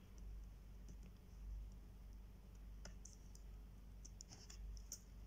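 Faint clicks of a computer mouse and keyboard, a few scattered at first and coming thicker about four seconds in as typing begins, over a low steady hum.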